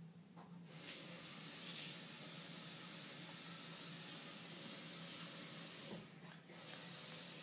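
Steady hissing noise, like running water or a spray, that starts about a second in, breaks off briefly about six seconds in, then resumes, over a low steady hum.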